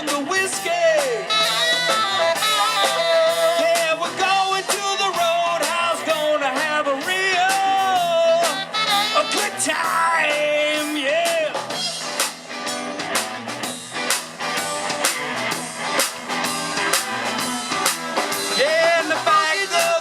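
Live blues-rock band playing: drum kit, electric guitar and bass with a singing lead, loud and steady throughout.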